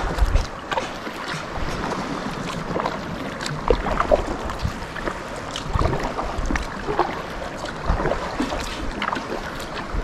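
Kayak paddling on a river: the paddle dipping and splashing, with irregular small drips over a steady water hiss. Occasional low rumbles of wind on the microphone.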